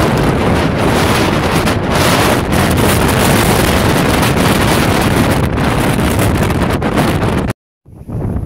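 Wind buffeting a phone's microphone. The loud, steady rumble cuts off suddenly about seven and a half seconds in, then returns quieter and gustier.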